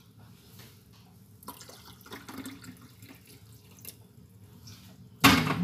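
Warm water poured from a stainless steel kettle, a faint trickle. A short loud clunk near the end.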